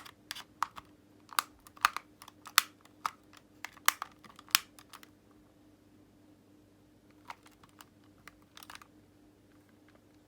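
Sharp plastic clicks and snaps as a pry tool works around the seam of an Xbox One controller's shell, prising the casing apart at its clips. A quick run of clicks in the first half, then a few more near the end.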